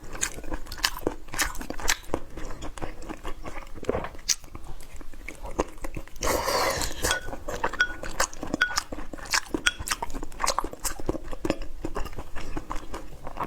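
A person chewing and biting food close to the microphone, with many short crunches and clicks. About halfway through there is a longer noisy rush lasting about a second.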